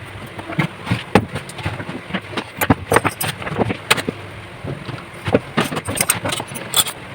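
Welding arc from a home-built welding machine being test-welded, crackling with irregular sharp pops over a steady hiss.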